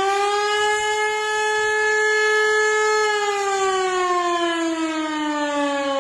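Warning siren wailing, as used in an emergency alert. Its pitch finishes rising within the first half-second, holds steady for about three seconds, then slowly winds down.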